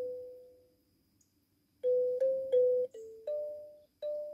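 Wooden box kalimba (thumb piano) plucked by hand. One note rings out and fades, then after a pause of about a second a slow run of single notes follows, each ringing briefly.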